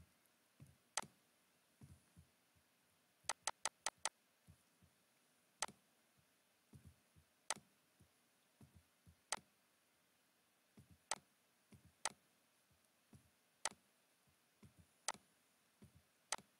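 Faint computer mouse clicking over near silence: single sharp clicks every second or two, with a quick run of five about three seconds in.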